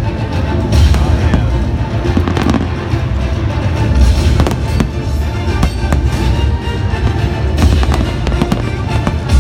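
Fireworks display: aerial shells bursting one after another in many sharp bangs and crackles, over loud music.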